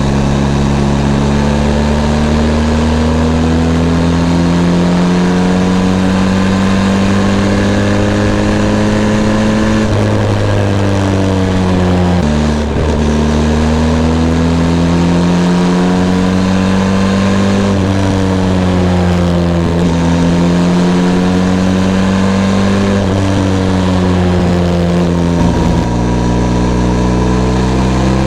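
Benelli TRK 502 X motorcycle's parallel-twin engine running under way, its pitch climbing slowly as it pulls. The pitch drops suddenly about twelve seconds in and again near twenty-five seconds in, as at gear changes, then climbs again.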